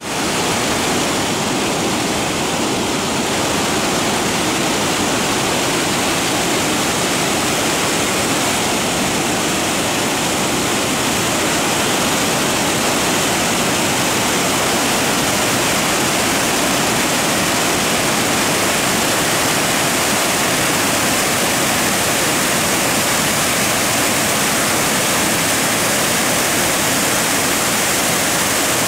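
Water spilling over the crest of a concrete dam and falling onto the rocks of the gorge below: a loud, steady rush of falling water.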